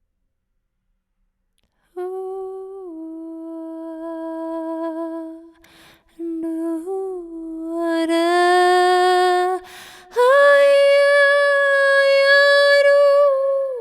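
A woman's voice humming and singing long held, wordless tones, starting about two seconds in, with audible breaths between phrases. About ten seconds in she steps up to a higher, louder open note and holds it.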